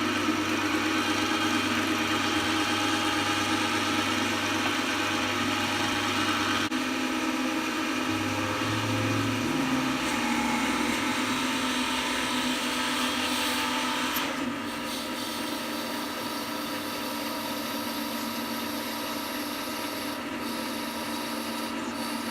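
Draper WTL90 wood lathe running while a tool cuts into the spinning wood, a steady rasping noise over the motor's hum. It eases a little about two-thirds of the way through.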